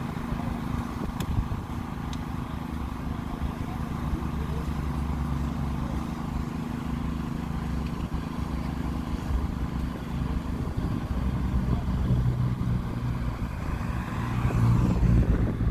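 Large diesel engine idling with a steady low rumble, such as a fire engine parked at the scene, swelling louder near the end.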